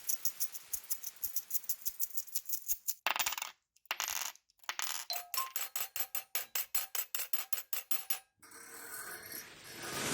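A rapid, even series of sharp clicks, about six or seven a second, broken by two brief silences near the middle and stopping shortly before the end.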